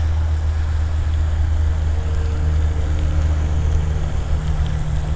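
Baitcasting reel being cranked to bring in a hooked fish, under a steady low rumble.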